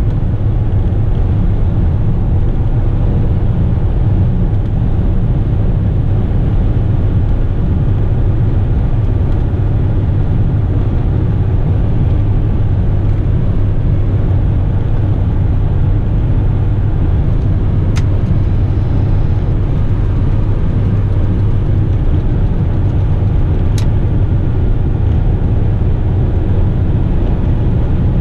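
Heavy Western Star truck's diesel engine droning steadily at highway cruise under a full load, heard inside the cab together with road and tyre noise.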